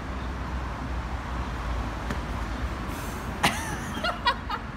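City street ambience: the steady low hum of distant road traffic, with a sharp sound about three and a half seconds in and a few quick, high chirps just after.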